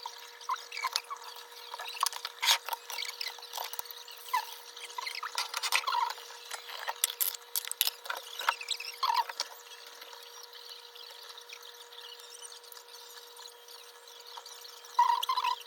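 Food-prep handling noises: scattered clicks and taps with short squeaky rubbing. They are busiest in the first half, thin out, and pick up again in a brief louder cluster near the end.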